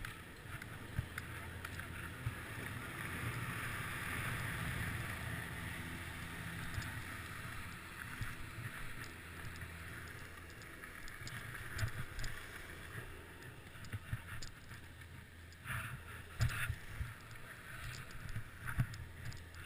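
Skis sliding and carving on firm groomed corduroy snow: a steady hiss, with a low wind rumble on the microphone. A few sharp knocks come in the last few seconds.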